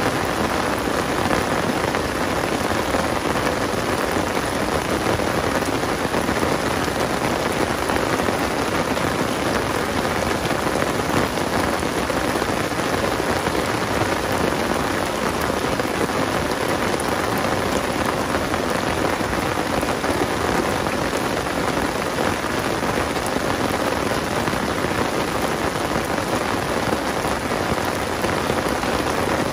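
Heavy rain falling steadily on the open water of a pond and on the umbrella fabric overhead, an even, unbroken downpour.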